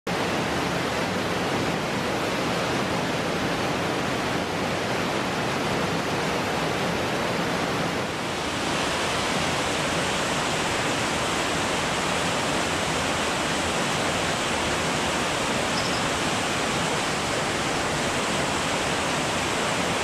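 Small waterfall pouring into a rock pool: a steady rushing of falling water. About eight seconds in, the rush turns a little brighter and hissier.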